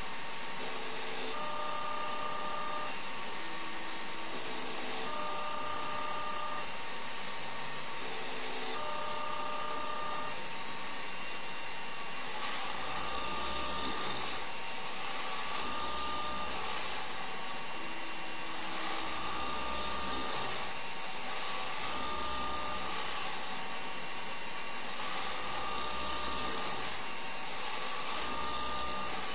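CNC machine running, with a steady spindle hiss. Over it, short whines from the axis motors, each a second or two long, repeat every few seconds as the tool makes the same passes again and again; in the second half a low hum joins each move.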